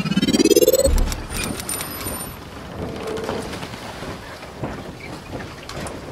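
Logo-intro sound effects: a whoosh that rises in pitch over the first second and ends in a deep boom, then a hissing, rumbling texture with scattered clicks and a few thin high tinkling tones.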